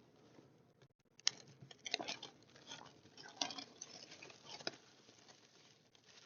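Hands opening the packaging of a trading-card box: faint rustling with scattered crinkles and clicks, the sharpest about a second in and again near three and a half and four and a half seconds.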